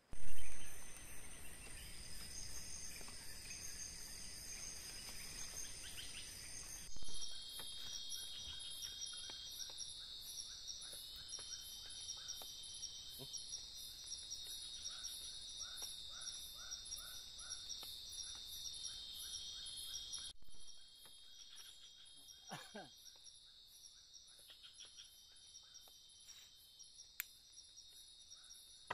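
Night insect chorus in tropical forest: a steady high-pitched buzz with a rhythmic pulsing call, changing abruptly twice. A short loud knock comes right at the start, and a single falling call sounds near the end.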